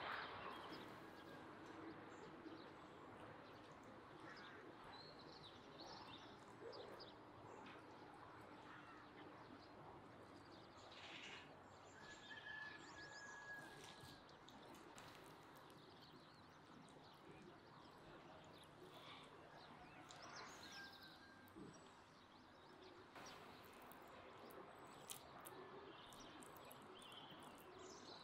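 Quiet outdoor background with a few short, faint bird calls, and soft rustles and clicks as cabbage leaves are handled.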